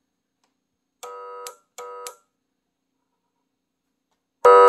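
Electronic vehicle siren amplifier (CJB-200W) driving its horn speaker with short, steady, buzzy horn-tone blasts: two moderate ones about a second in and just under a second apart, then a much louder blast near the end.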